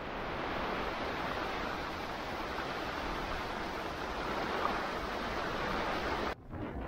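Heavy rain and strong wind of a squall over a sailboat's cockpit under a canvas bimini, a dense steady hiss that cuts off suddenly about six seconds in.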